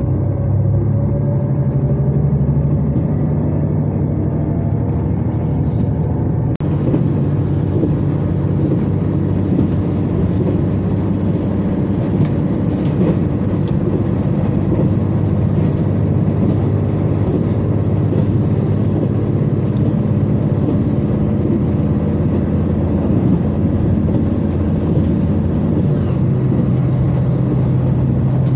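Cabin noise of a diesel express train (Limited Express Hokuto) running along the line: a steady low drone from the diesel engines under the floor mixed with the rumble of wheels on rail. The tone changes abruptly about six and a half seconds in.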